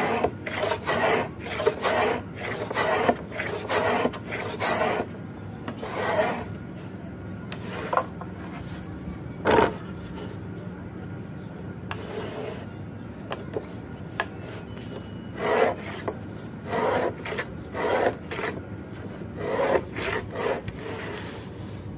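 Marking gauge scraping along the edge of a fibreboard sheet, cutting a line in repeated short strokes of about two a second. The strokes come in a run at the start and another near the end, with a few single strokes in the pause between.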